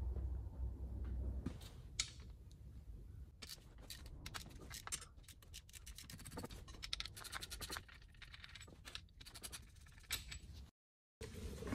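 A ratchet clicking in quick runs, with tools scraping on metal, as the lower bellhousing bolts are undone. A low hum at the start gives way to the clicking.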